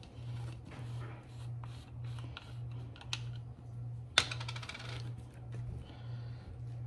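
Small clicks and knocks of tools and parts being handled on a workbench, with one sharp metallic clink about four seconds in, over a low hum that pulses about twice a second.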